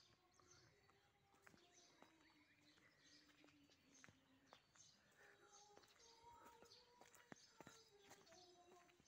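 Very faint outdoor sound: small birds chirping over and over, with distant voices singing long held notes that step from one pitch to the next, and a few light clicks.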